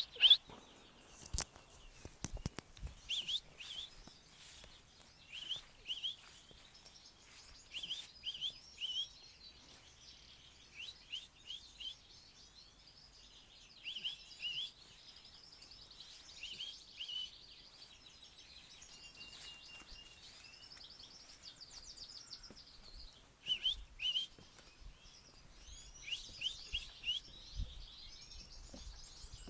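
Small birds calling in a garden: short chirps in twos and threes, repeated every second or two, over fainter higher twittering. A few sharp knocks about one to two seconds in.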